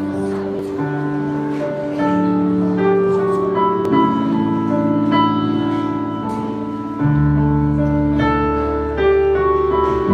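Instrumental intro of a song played live by a small band, led by keyboard: sustained chords changing every second or two with a melody on top, and a deeper bass note coming in about seven seconds in.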